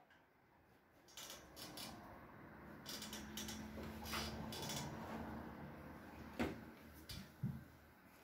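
Faint crackling and rustling of stiff sinamay fabric being handled on a hat mould, with scattered small clicks. There is a sharp knock about six seconds in and two soft thumps near the end.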